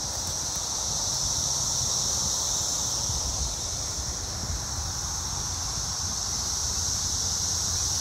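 Chorus of 17-year periodical cicadas (Brood XIII), a steady high-pitched buzz that swells slightly after about a second, with a low rumble beneath.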